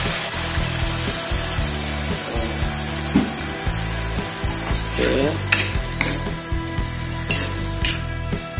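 Eggplant in a soy-sauce mixture sizzling in a nonstick wok, with a little water just added. From about five seconds in, a metal spatula stirs and scrapes against the pan, giving several short scraping clinks.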